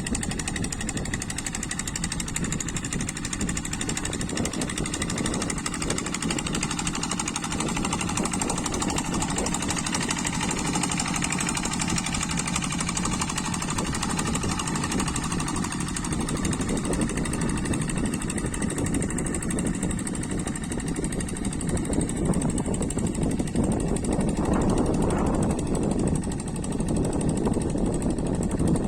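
Kubota single-cylinder diesel engine of a two-wheel hand tractor running steadily with a rapid, even chugging beat while levelling rice-paddy soil, growing a little louder near the end.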